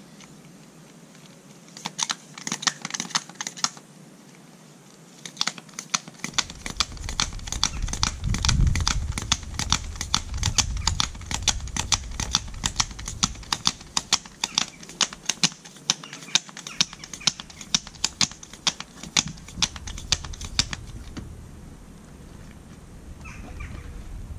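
Hand tyre pump worked in quick, steady strokes, inflating a 36-inch unicycle tyre: a rapid, even run of clicks. A short run comes about two seconds in, then a long one from about five seconds to about twenty-one seconds in.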